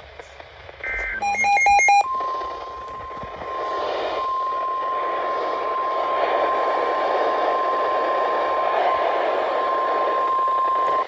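Weather radio emergency alert tones: a last short data chirp and a brief loud electronic beeping about a second in, then the steady 1050 Hz warning alarm tone over radio hiss for about nine seconds, signalling that a new warning follows.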